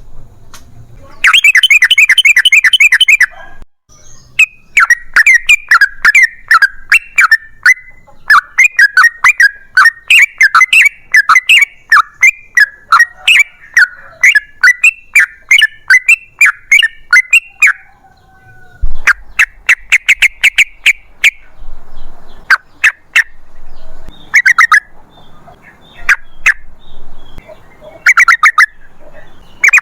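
Yellow-vented bulbul (trucukan) singing its loud, bubbling chatter. A long, rapid run of notes lasts about fourteen seconds, then come shorter bursts toward the end.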